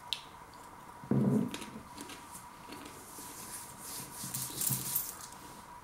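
A man eating a crunchy lentil chip: quiet crunching with a short low 'mm' about a second in, then his hands brushing together, a dry rubbing hiss, near the end.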